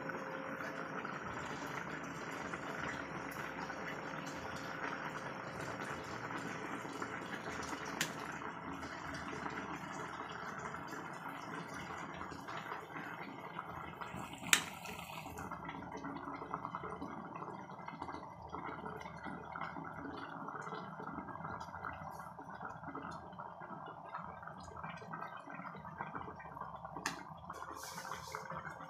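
Fish and pechay soup boiling in a pot: a steady bubbling of the broth, with a single sharp click about halfway.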